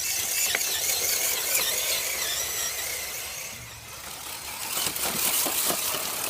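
High-pitched whine of a radio-controlled truck's electric motor and gears driving over dirt, wavering with the throttle. It eases off a little before four seconds in, then rises again.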